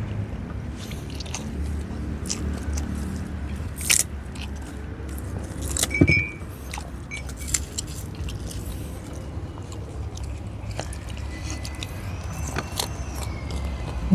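Close-miked eating by hand: chewing and mouth smacks with sharp clicks, the loudest about six seconds in, over a low steady rumble.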